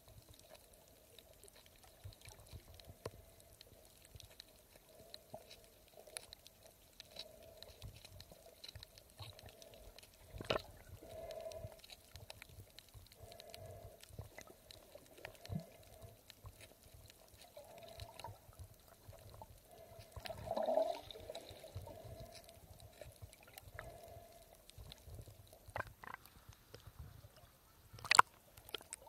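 Muffled underwater sound through a camera held beneath the surface: faint water movement and bubbling with scattered small clicks. A louder swell of water noise comes about two-thirds of the way in, and a sharp knock near the end is the loudest sound.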